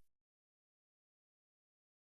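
Digital silence.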